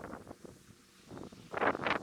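Bonfire of dry branches and grass burning, with irregular crackling and a louder flurry of crackles about one and a half seconds in.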